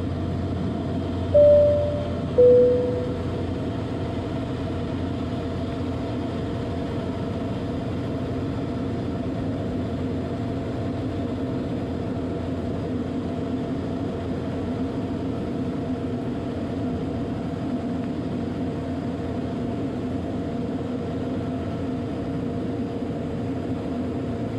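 Steady cabin drone of a Cessna U206G's Soloy-converted Allison turboprop engine during the approach. Two short, loud tones sound early on, about a second apart, the second lower in pitch than the first.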